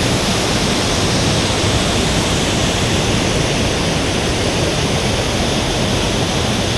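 Waterfall at close range: a loud, steady rush of falling water that drowns out speech.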